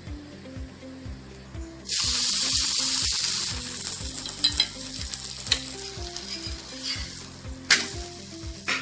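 Coconut poli (sweet stuffed flatbread) frying on a hot iron tawa, bursting into loud sizzling about two seconds in as fat is poured from a ladle, then easing to a lighter crackle, with another loud sizzle near the end.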